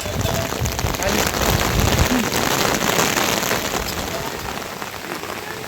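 Heavy rain falling, a dense hiss of drops with many small splashes, with low thumps in the first couple of seconds; it eases a little toward the end.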